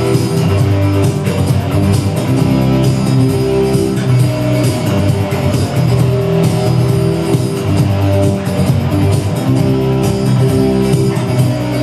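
Rock music with guitar chords over a steady drum beat: the instrumental ending of the song, with no singing.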